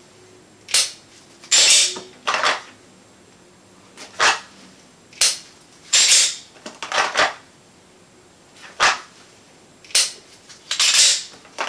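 Pistol dry-fire practice: about ten sharp clicks and short scraping rattles at uneven intervals. They come from the trigger snapping on an empty chamber, the slide being racked to recock it, and the pistol being drawn from and pushed back into its holster.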